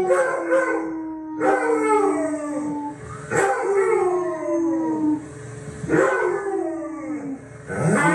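A dog howling on a television: a series of long howls, a new one about every two seconds, each sliding slowly down in pitch.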